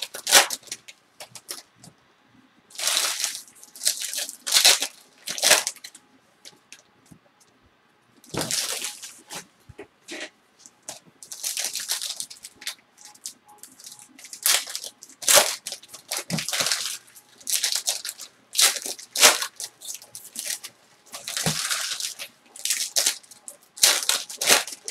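Foil trading-card pack wrappers being torn open and crinkled by hand, in a string of irregular crackling rustles with short pauses between them.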